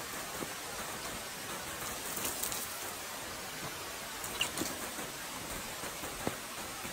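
Steady rain falling, a continuous hiss with a few brief ticks of drops.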